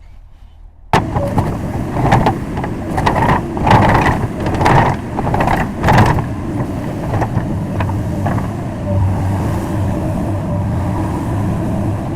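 Komatsu PC200 excavator's diesel engine running. It starts up loud about a second in, swells several times, then settles to a steady run.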